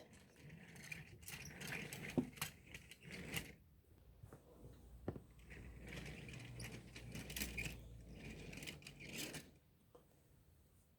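Faint scattered clicks and rustling handling noises, with a low hum underneath for a few seconds past the middle; it goes quiet about a second and a half before the end.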